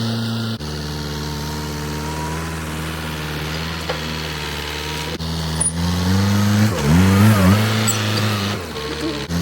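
A low-pitched engine running steadily. Between about six and a half and eight seconds in, its pitch sags and wavers, then recovers, as it works under load.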